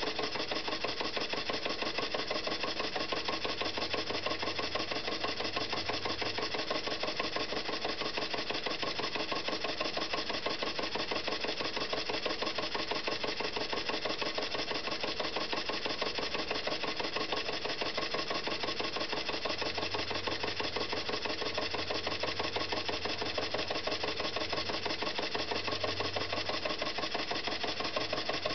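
Antique Märklin toy steam engine running on compressed air and driving a belted Märklin 4266 air hammer model: a rapid, even mechanical clatter of piston strokes that holds steady throughout, the machinery running smoothly.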